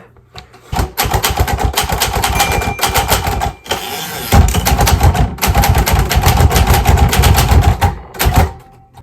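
Royal manual typewriter being typed on quickly: a rapid run of sharp key strikes, with a short break about a third of the way through.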